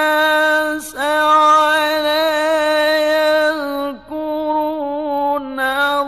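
Quran recitation in the melodic mujawwad style: a solo male reciter's voice holding long notes that waver and slide in pitch, breaking off briefly about a second in and again at about four seconds.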